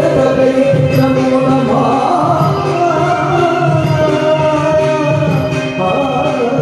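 Carnatic music played live for Bharatanatyam dance: a singer's voice carrying a melody over instrumental accompaniment, continuing steadily.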